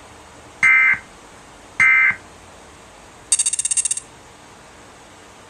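Emergency Alert System end-of-message data bursts: two short bursts of digital data tone a little over a second apart, the coded tones that close an EAS alert. About three seconds in, a separate rapid pulsing high-pitched buzz lasts under a second.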